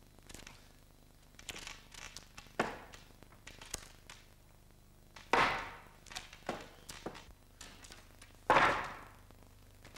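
Knocks, clicks and thuds of a large painted frame and metal stand poles being handled and set down on a stage floor, with three louder thuds about two and a half, five and a half and eight and a half seconds in, each ringing briefly before it dies away.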